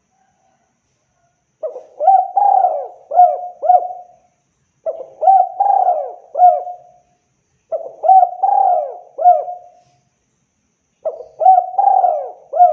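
Spotted dove (tekukur) cooing: four repeated phrases of several low coos, each phrase about two and a half seconds long with short pauses between them.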